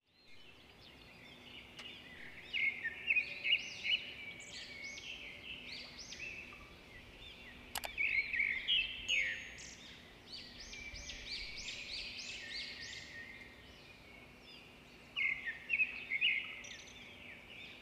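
Birds singing and chirping: clusters of quick, high, rising and falling calls that come and go, busiest a few seconds in, around eight to thirteen seconds, and again near the end. A single sharp click about eight seconds in.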